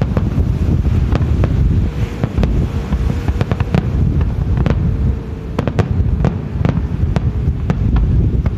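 Aerial fireworks shells bursting: many scattered sharp pops and crackles over a heavy low rumble of wind on the microphone.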